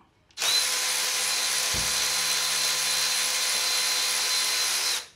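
Red cordless power ratchet running steadily for about four and a half seconds with a thin high whine, turning a bolt on the cylinder head of a 5.7 Hemi during teardown. It starts about half a second in and stops suddenly just before the end.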